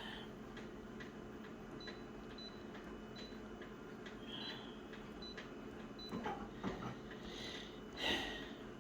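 Faint, regular ticking, about two ticks a second, with a few short high chirps scattered through it and a brief louder rustle near the end.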